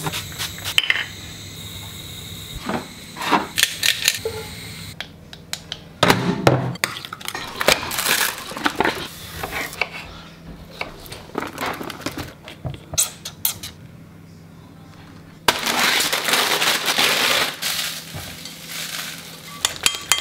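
Kitchen food-prep sounds in quick succession: a knife cutting on a wooden chopping board, cutlery and dishes clinking, and a spoon stirring in a glass bowl. Near the end, a few seconds of steady hiss.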